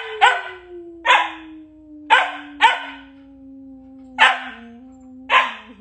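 A puppy barking about seven times in sharp, spaced barks, over a long, low, drawn-out tone that slowly falls in pitch.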